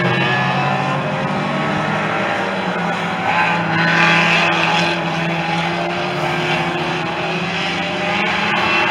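Hot saloon race car engines running hard around the track: a steady engine drone that drifts a little up and down in pitch.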